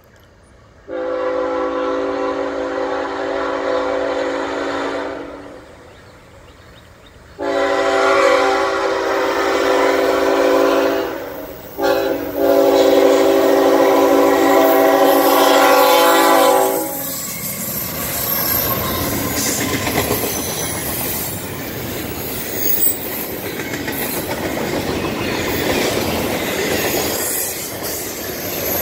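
Air horn of a Norfolk Southern GE ET44AC locomotive sounding the grade-crossing signal, a chord of several notes: two long blasts, a very brief blip, then a final long blast. The locomotives and intermodal well cars then pass at speed with a steady rumble and clatter of wheels on rail and faint wheel squeal.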